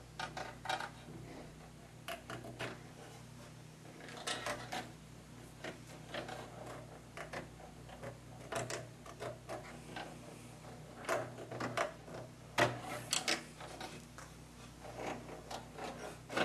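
Irregular clicks and rustles of SATA data and power cables being handled and plugged into connectors inside an open desktop PC case, over a faint steady low hum. The clicks come in clusters, the sharpest a little past the middle.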